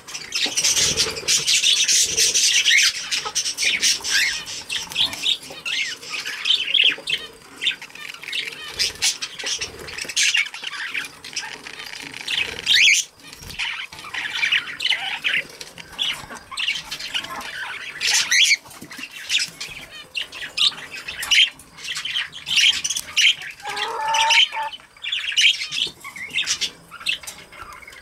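Budgerigars chattering in a cage: a steady run of fast, high chirps and squawks, busiest in the first few seconds, with one lower squawk near the end.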